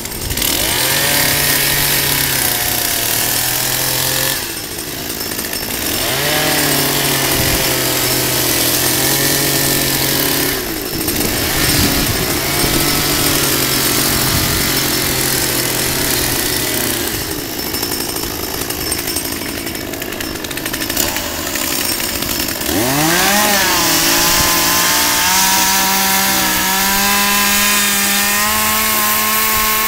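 Small two-stroke gas chainsaw running at cutting revs while carving into a log, the engine note easing off and coming back between cuts. About 23 seconds in it revs up sharply and then holds a higher pitch that slowly climbs.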